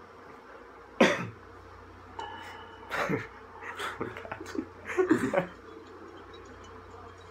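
Short, sudden bursts of a person's voice: a loud cough-like burst about a second in, then a string of short stifled laughs between about three and five and a half seconds.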